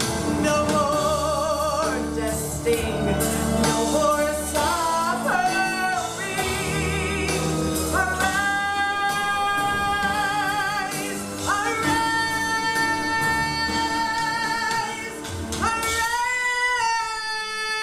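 A woman singing a gospel song over instrumental backing, with a wavering vibrato early on and long held notes in the later part.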